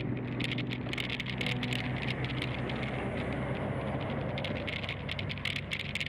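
Handlebar-mounted camera on a road bike rattling quickly and irregularly over the asphalt, over the steady hiss of the tyres and the wind.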